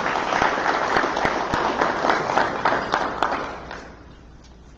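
Audience applauding, a dense patter of many hands clapping that dies away about three and a half seconds in.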